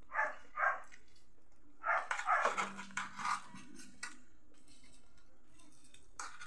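A dog barking off-camera: two short barks at the start, then a quick run of barks about two seconds in.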